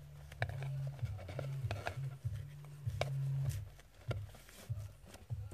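Hands working small cardboard boxes and a satin ribbon: scattered light taps, rustles and a few sharp clicks.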